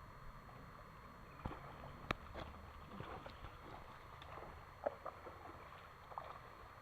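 Faint outdoor background noise with scattered sharp clicks and knocks, the loudest about two seconds in.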